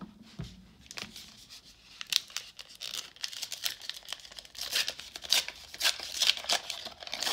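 Foil wrapper of a 1991 Upper Deck baseball card pack being torn open by hand, crinkling and ripping in quick irregular tears. The tearing is sparse for the first couple of seconds and busiest in the second half.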